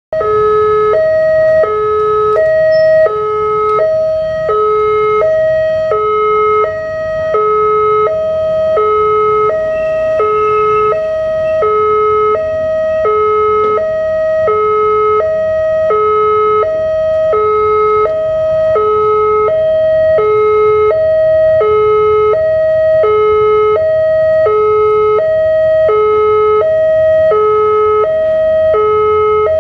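Railway level-crossing warning alarm sounding a steady two-tone signal, a higher note and a lower note alternating about every 0.7 s without pause. It signals that a train is approaching and the barriers are down.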